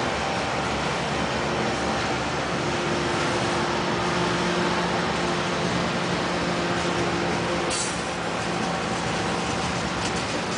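Freight train cars rolling past close by: a steady noise of steel wheels on rail with faint steady tones running through it. About eight seconds in there is a brief high-pitched squeak.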